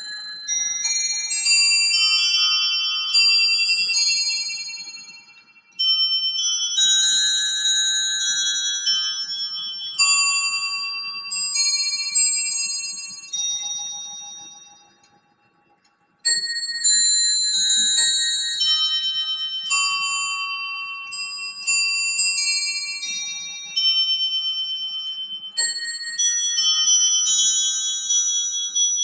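Musical works of a Paul Rimbault tall case clock playing a march on its bells: a pinned brass barrel lifts hammers onto the bells in a quick, bright, ringing melody. The tune pauses between phrases, dying away to near silence for about a second halfway through, then starts again.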